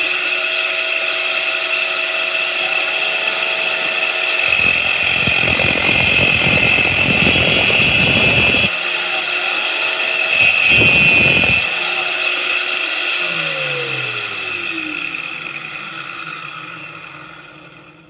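Angle grinder clamped in a vise as a cut-off saw, running at speed with a steady whine. Twice, for about four seconds and then about a second, its abrasive cut-off disc bites into the firing-pin stock, adding a harsh grinding noise as the pin is cut to length. Near the end it is switched off and the whine falls away as the disc spins down.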